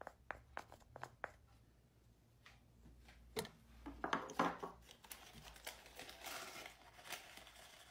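A wooden spatula scraping and tapping lemon zest off a grater over the mixing bowl: a quick run of light ticks and scrapes in the first second or so, then faint scattered rustles and knocks.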